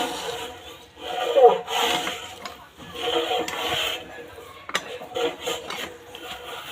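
A hand tool rubbing and scraping across wood in repeated strokes, about one every second or two, weakening after the first few seconds, with a sharp click about two thirds of the way in.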